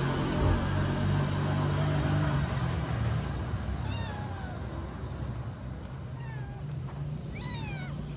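Cat meowing several times from about halfway in, each meow falling in pitch, with two or three quick ones near the end. A low steady hum dies away over the first few seconds.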